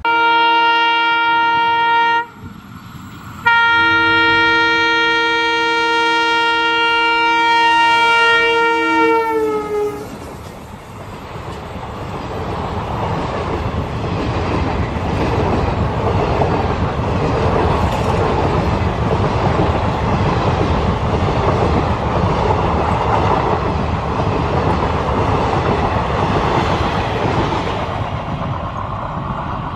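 An EMD WDP4B diesel locomotive sounds its horn: a blast of about two seconds, then a longer one of six or seven seconds whose pitch drops as the locomotive passes. Then the coaches rush by at about 80 km/h with a steady roar of wheels on rail and a light clatter over the rail joints.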